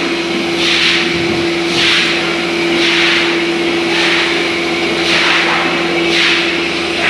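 Milking-parlor machinery: a rhythmic hiss of air about once a second, over a steady machine hum.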